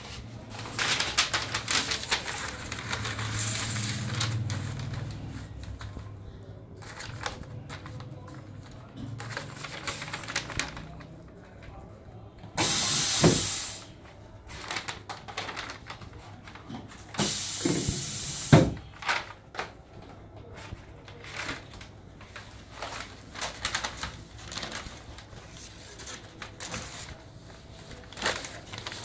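Blister heat-sealing press cycling. There are two hissing bursts, each about a second long, one roughly halfway through and one a few seconds later, and each ends in a sharp clunk. Between and around them are the rattles and crinkles of the plastic blister sheet and tray being handled.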